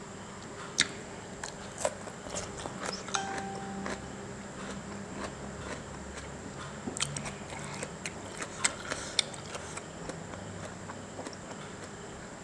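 Close-up eating sounds: a person chewing and biting into yum mama, a spicy instant-noodle salad, with sharp wet clicks at irregular intervals.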